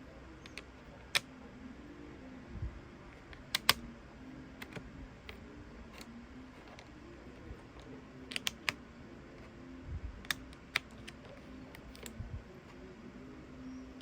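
Scattered light clicks and taps at an uneven pace, a few sharper than the rest, over a faint steady hum.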